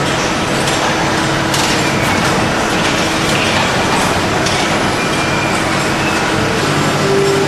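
Machinery on a cathode ray tube production line running steadily: a constant loud hiss with a low hum underneath, and a couple of light clicks about two seconds in.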